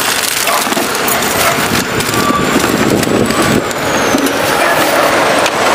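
Road traffic running steadily, with one vehicle going by about three to four seconds in, its high whine dropping in pitch as it passes.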